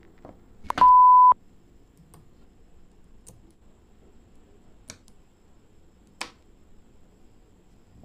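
A short electronic beep at one steady pitch, about half a second long, about a second in. After it come a few sharp, spaced-out clicks of small magnetic balls snapping together as they are handled.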